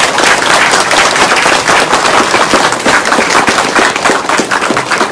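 Audience applauding: many hands clapping at once, loud and close, easing off near the end.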